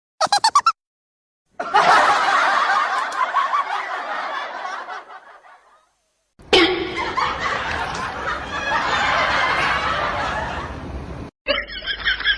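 People laughing and snickering in several separate stretches, each broken off abruptly by dead silence.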